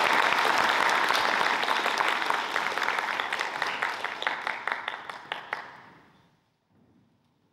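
Audience applauding: a dense round of clapping that thins out and stops about six seconds in.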